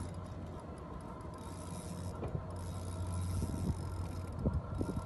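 Shimano Sienna 2500FD spinning reel clicking while a fish is played on a bent rod, the clicks coming more often in the last second and a half, over a steady low hum.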